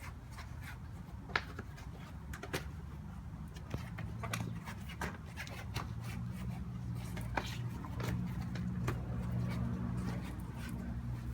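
Bicycle tire being worked back onto the rim by hand: irregular small clicks and knocks of the tire and wheel being handled, over a steady low hum.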